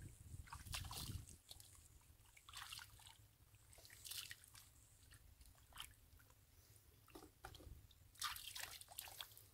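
Hands working through shallow muddy water: small, faint splashes and drips coming and going every second or two, as water runs off the fingers.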